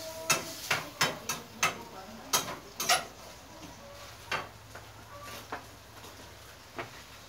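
Metal utensil knocking and scraping against a single-handled wok as beef is stir-fried dry. There are about seven quick knocks in the first three seconds, then a few scattered ones.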